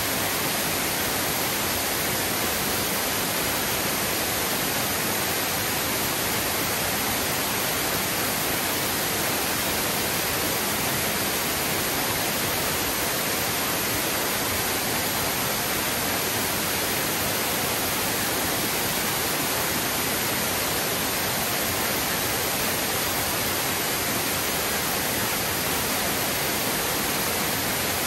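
Large waterfall's falling water, a loud, steady, unchanging rush of noise.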